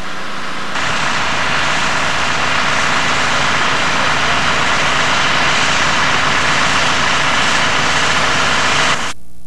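Fire trucks idling at the scene: a steady, even engine noise that stops abruptly near the end.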